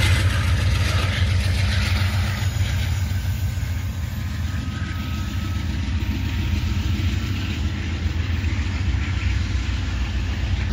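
GE P42DC diesel locomotive's V16 engine running steadily as it pushes its train away, the low drone slowly fading into the distance.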